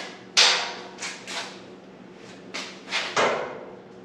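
Steel clanks and knocks as roll-cage tubing and the pins and die of a manual tube bender are set and locked in place. The loudest clank comes about half a second in, lighter knocks follow, and another cluster comes near three seconds, each with a short metallic ring.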